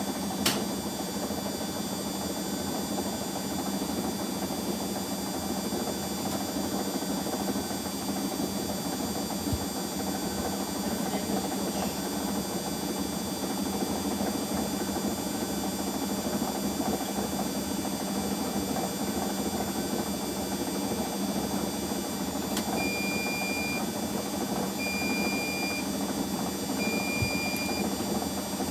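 Washing machines running with a steady mechanical hum. Near the end, three short, even electronic beeps sound about two seconds apart.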